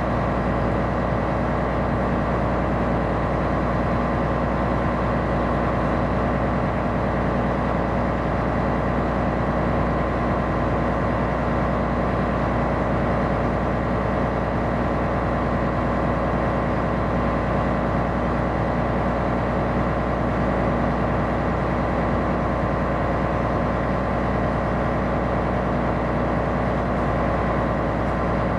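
Ship's diesel engine and machinery running steadily aboard a coastal tanker underway, a constant hum with several fixed tones.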